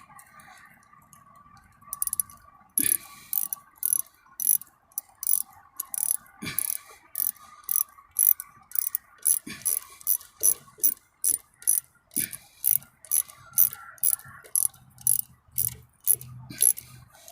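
Ratchet wrench with a 10mm socket tightening the clamp on an air intake hose: the pawl clicks steadily, about two clicks a second, starting about three seconds in.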